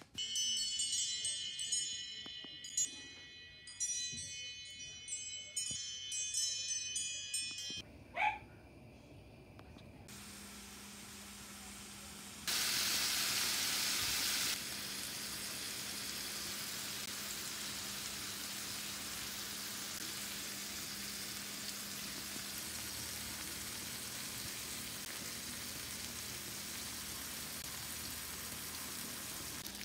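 Chiming music for about the first eight seconds, then a short rising tone. From about ten seconds in, New York strip steaks sizzle steadily on a hot cast iron grill pan over a low steady hum, the sizzle loudest for about two seconds a little after twelve seconds in.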